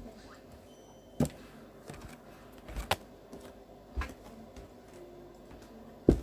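Scattered sharp knocks and taps of objects being handled: four louder ones a second or two apart, the loudest near the end, with a few fainter taps between.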